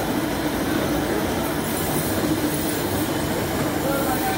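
Large log band sawmill running, its steel band blade cutting through a log: a loud, steady mechanical noise without let-up.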